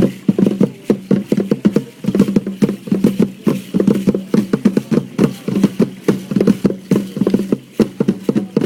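Fast, even drumming with a rattling edge on every beat, the percussion that drives a prehispanic dance.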